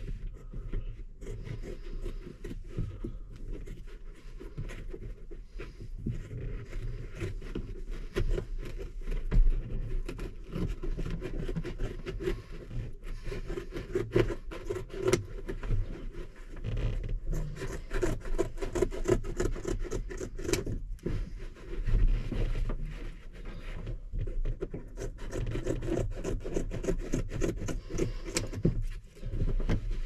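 Ribbed floor carpet being trimmed with a blade and pressed into place on a combine cab floor: irregular scraping, rubbing and clicking of the tool and the mat.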